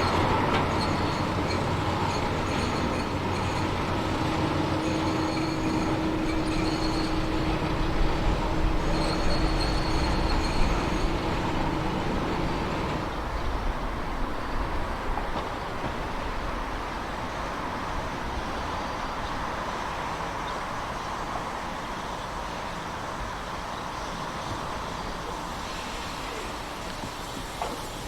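Harz narrow-gauge train running along the track, with high wheel squeal coming and going over the first ten seconds or so. It gradually grows quieter.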